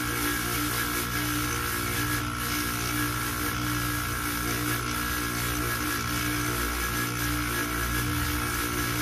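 Polishing motor running steadily with a hum and a higher whine, its buffing wheel spinning against a metal watch case held to it for polishing.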